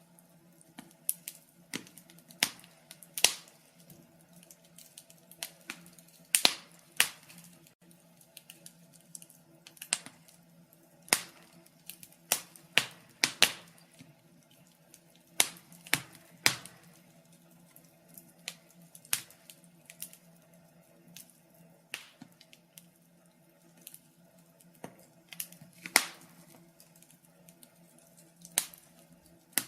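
Wood fire crackling: irregular sharp snaps and pops, a few of them loud, over a faint steady low hum.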